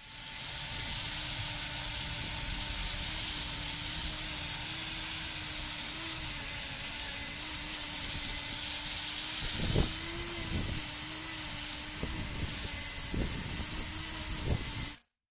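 Angle grinder running with a crimped-wire cup brush scrubbing rust off a square steel tube: a steady motor whine under a loud hiss of wire on metal, with a few sharp clicks in the second half. It cuts off suddenly near the end.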